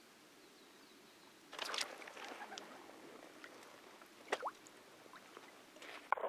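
Sudden splashing and rustling about a second and a half in as a herabuna takes the float under and is hooked, then a few faint clicks and knocks.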